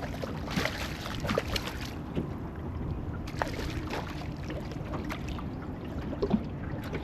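Steady wind and water noise on an open boat, with brief scattered knocks and splashes as a small mulloway is landed.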